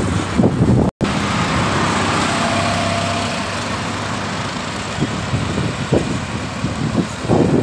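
Steady road traffic noise with wind buffeting the microphone in gusts as the camera moves along the road. The sound cuts out for an instant about a second in.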